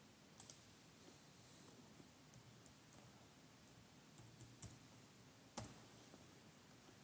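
A few faint, sharp clicks over near-silent room tone. A quick double click comes about half a second in, a handful of softer ticks follow, and one louder click sounds about five and a half seconds in.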